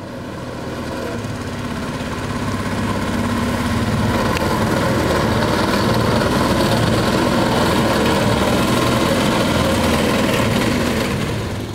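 Bawad long-tail mud motor driving a small boat under way, its engine running steadily. It grows louder over the first few seconds and drops away near the end.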